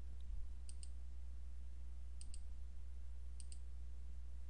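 Computer mouse clicking three times in quick pairs, like double-clicks, over a steady low electrical hum.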